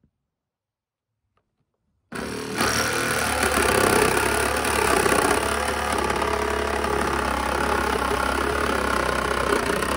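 Near silence for about two seconds, then a cordless reciprocating saw starts abruptly and runs steadily, its blade cutting through a van's sheet-metal roof panel.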